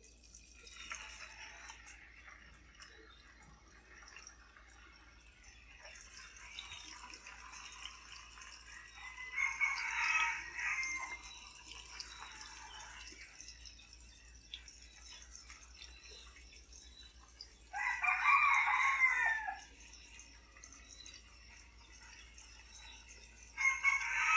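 A rooster crowing three times, each call about a second and a half long and several seconds apart, over a faint steady sizzle from tofu cubes frying in the pan.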